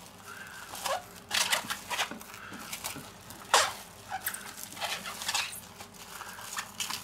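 Plastic cling film crinkling and squeaking in irregular bursts as it is pressed and smoothed down around the rim of a stainless steel bowl.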